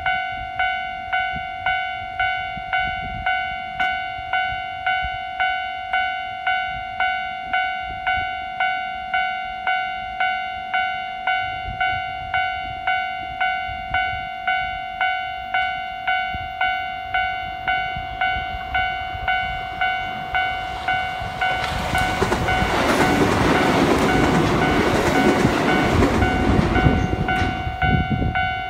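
Japanese level-crossing warning bell ringing in an even ding-ding, about one and a half strikes a second. Over the last several seconds a 521 series electric multiple unit passes with a growing rush of wheel and rail noise, and the bell cuts off near the end.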